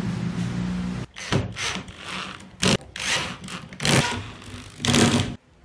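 A steady mechanical hum that stops abruptly about a second in, then a cordless drill-driver driving screws through a wooden strip into MDF in short, separate runs.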